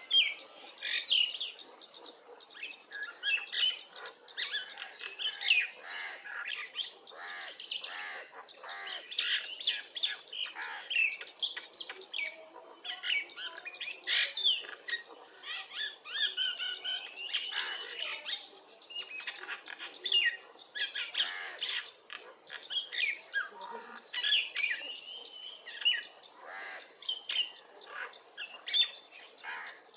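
Birds chirping and squawking in a busy, overlapping stream of short calls.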